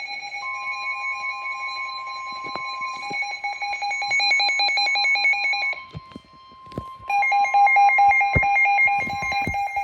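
Weather radio tornado warning alert: a steady warning tone near 1 kHz with a shrill electronic beeping alarm over it. The beeping pulses rapidly, drops out for about a second with a few clicks near the middle, then starts pulsing again.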